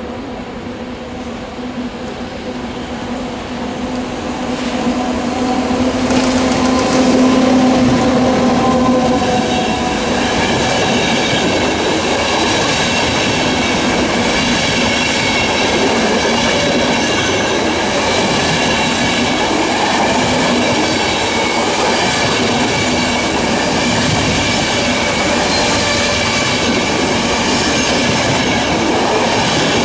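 Electric-hauled passenger train approaching with a steady hum that grows louder and peaks about seven seconds in as the locomotive passes. After that a long rake of passenger coaches rolls past with dense, steady wheel-on-rail noise and a high ringing.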